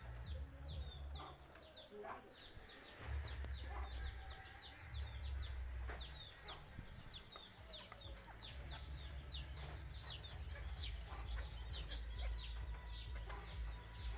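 Chickens peeping: many short, high calls that slide downward, several a second, over a low rumble underneath.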